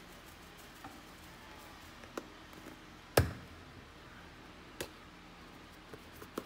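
Spice containers handled at a stainless steel mixing bowl: a few sharp taps and knocks over faint room tone, the loudest about three seconds in.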